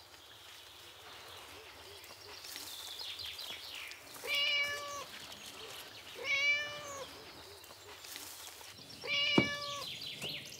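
Young tabby cat meowing three times, each meow short and high-pitched, a couple of seconds apart.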